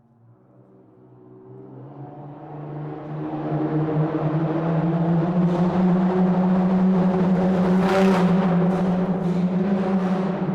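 Car engine and tyre noise droning through a tunnel, a steady low hum that fades up from silence over the first few seconds. Several brief hissing swells come in from about halfway through.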